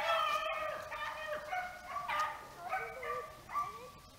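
A pack of beagles baying in full cry on the rabbit's trail, several voices overlapping in long, bending bawls. The calls then come singly and grow fainter toward the end.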